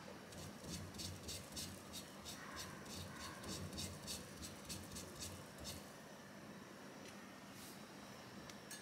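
Tissue being rubbed quickly over a gas stove's burner, a run of short scratchy strokes at about four a second that stops a little past halfway, wiping oil residue away from the flame-failure sensor's gas hole. A couple of faint ticks follow.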